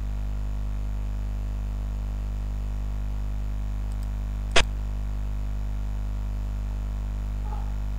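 Steady low electrical hum, with a single sharp click about four and a half seconds in: the move sound of a xiangqi (Chinese chess) program as the black general is placed on a new square.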